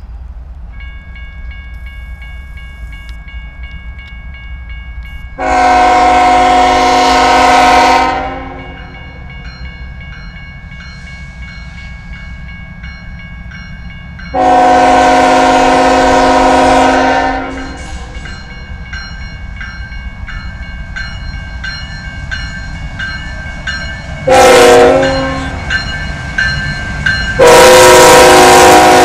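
Norfolk Southern diesel locomotive 3667 sounding its multi-note air horn in the grade-crossing pattern as the train approaches: long, long, short, long. The third and fourth blasts come much louder as it nears. Under the horn runs the low rumble of the locomotives and a steady, evenly repeating high ringing.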